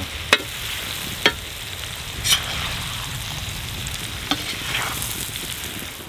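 Beef, potatoes and onion frying with a steady sizzle in a wide pan while a metal slotted spoon stirs them, with a few sharp clinks of the spoon against the pan.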